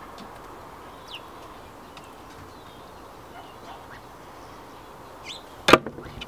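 A few faint, high, short bird chirps. About a second before the end there is one sharp, loud knock.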